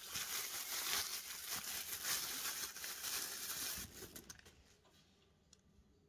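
Plastic bubble wrap crinkling and rustling as it is pulled off a small part, with dense crackling for about four seconds that then fades to faint handling.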